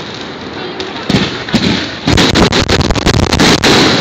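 Aerial fireworks shells bursting. There are a few scattered bangs in the first half, then a dense, rapid run of loud bangs from about halfway through.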